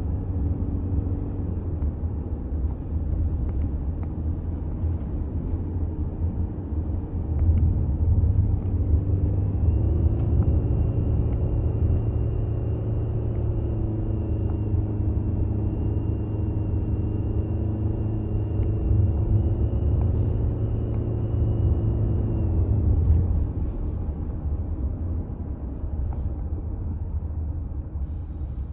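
Road noise and low rumble from a Toyota Alphard hybrid being driven. About a third of the way in it gets louder, and a steady hum with a faint high whine runs over the rumble until near the end.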